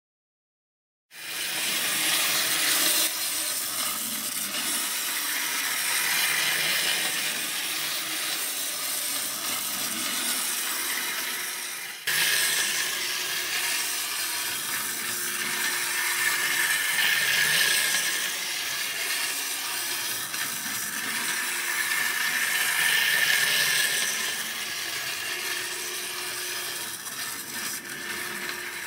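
Wind-up clockwork motor of a Capsule Plarail E1 Series Max toy train whirring as the train runs along plastic track. It starts about a second in, with a brief sudden break about twelve seconds in.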